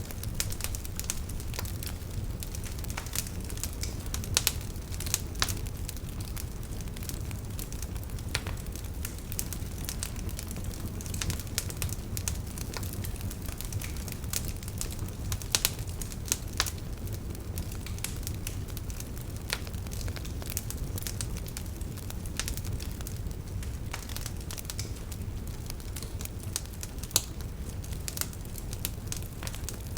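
Wood fire in a fireplace crackling: a steady low rumble of the flames under frequent sharp pops and snaps, a few of them louder than the rest.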